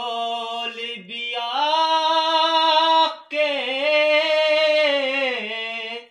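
A single voice sings unaccompanied, holding long, wavering notes of a Punjabi Sufi devotional song. It sings three drawn-out phrases, with short breaths about one second and about three seconds in.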